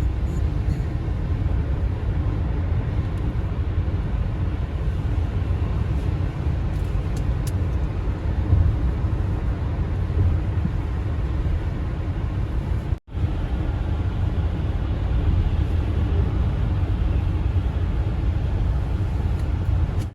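Steady low rumble of a car driving at highway speed, road and tyre noise, which drops out for a split second about two-thirds of the way through.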